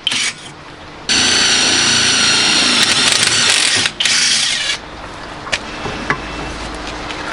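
Electric drill boring holes in a motorcycle exhaust's dB killer (baffle), a steady high whine in runs: a short burst, a long run of about three seconds, then a brief one before it stops. A few light clicks follow.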